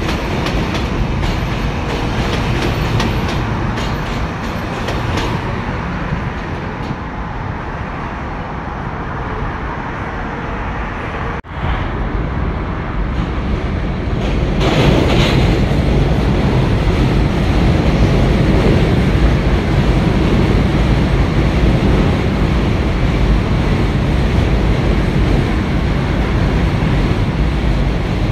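NYC Subway train running over the steel Williamsburg Bridge: a steady rumble with wheel clatter on the track. The sound drops out for an instant about eleven and a half seconds in and is louder and brighter from about fifteen seconds on.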